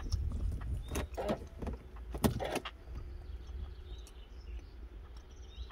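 A low steady rumble heard from inside a car's cabin, broken by a few sharp knocks and clunks: two about a second in and two more just after two seconds.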